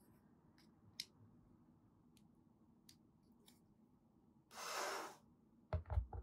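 Hard plastic figure and display stand being handled: a few faint clicks, a brief scraping rub about four and a half seconds in as the stand's arm is pushed into the figure, then several low knocks near the end as the stand's round base is set on the table.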